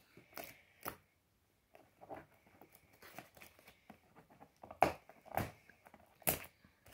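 Fingers handling a small cardboard box and picking at its perforated tab to open it: scattered taps, scrapes and rustles, with two sharper knocks near the end.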